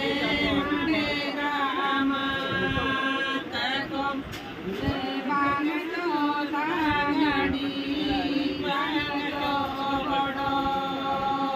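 A group of women singing a song together, with long held notes and slides between them.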